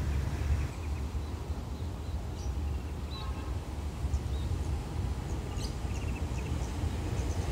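Small birds chirping in short, scattered high calls over a steady low rumble.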